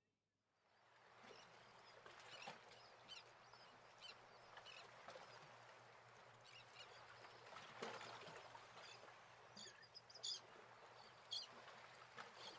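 Faint outdoor ambience at dusk with scattered small bird chirps, a few sharper calls near the end, over a faint steady low hum.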